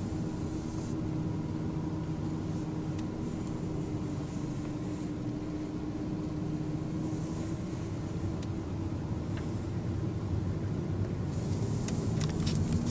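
A car moving slowly: a steady low engine hum with road noise.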